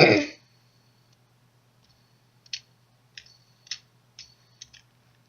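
Plastic fidget spinners being handled, giving about half a dozen sharp separate clicks in the back half, after a short loud burst right at the start.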